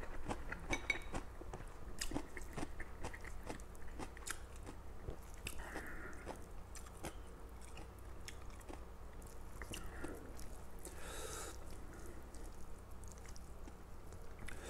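A man chewing a mouthful of stir-fried mi goreng instant noodles close to a clip-on mic, with irregular wet mouth clicks and smacks, loudest in the first couple of seconds.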